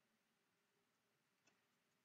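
Near silence: faint room tone with a single faint click about one and a half seconds in.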